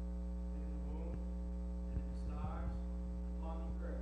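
A steady electrical hum with many even overtones runs throughout. Faint speech in short phrases comes through it about a second in, again around two and a half seconds, and near the end.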